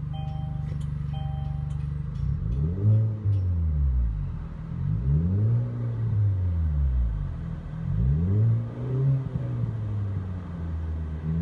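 2017 Kia Optima's 2.0-litre turbocharged four-cylinder engine, breathing through an aftermarket Street Demon performance exhaust, idling steadily and then revved in Park three times, each rev rising to about 3,500 rpm and falling back to idle, with a fourth rev starting near the end.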